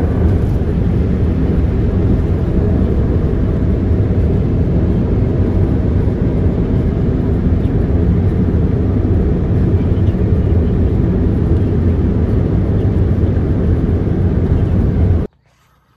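A loud, steady, low rumbling noise that cuts off suddenly shortly before the end.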